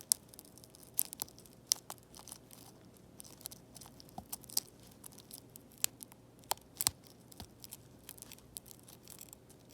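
Scattered small clicks and crackles of a spudger prying under an iPad mini 5's cracked glass, lifting it off its heat-softened adhesive. A faint steady hum runs underneath.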